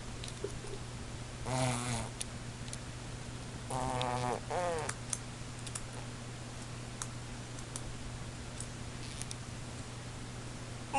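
Baby blowing raspberries, buzzing her lips twice: about a second and a half in and again around four seconds, the second one longer. A steady low hum runs underneath.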